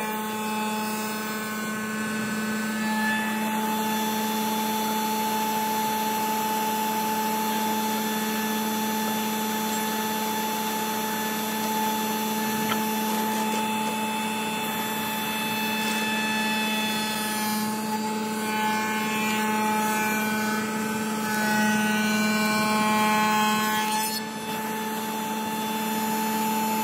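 Wood shaper (spindle moulder) running with a steady hum while its cutter shapes a profile along a wooden rail fed past the fence. It grows a little louder for a few seconds near the end.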